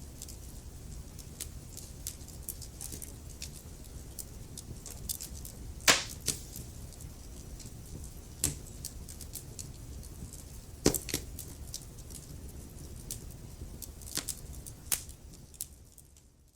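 Wood fire crackling in a fireplace: a low steady rumble of flames with frequent small snaps and a few loud pops, the loudest about six and eleven seconds in. The sound fades out near the end.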